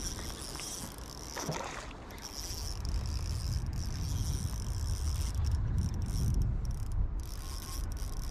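Spinning reel being wound in against a hooked trout on a bent ultralight rod, its gears whirring steadily, over a low rumble.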